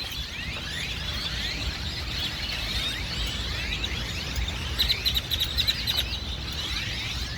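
A flock of great-tailed grackles calling together: a dense, overlapping chorus of rising whistles and squeaks, with a cluster of quick, sharp calls about five seconds in, over a steady low rumble.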